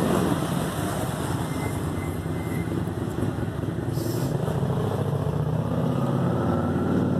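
A motor vehicle's engine running, a steady low rumble with a rapid pulse.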